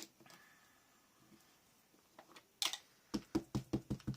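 Foam ink-blending tool dabbed rapidly on paper or an ink pad: an even run of soft taps, about five a second, starting about three seconds in, after a short rustle.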